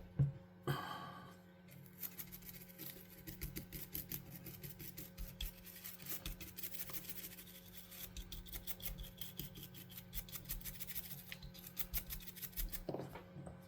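Toothbrush bristles scrubbing the plastic buttons of a Mega Drive controller, quick back-and-forth strokes several times a second, starting about two seconds in and stopping shortly before the end, working dirt out of the indented letters.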